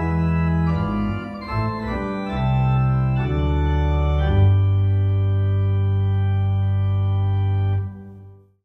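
Two-manual electronic home organ playing a sequence of chords with deep bass, then holding one final chord for a few seconds before it is released and dies away near the end.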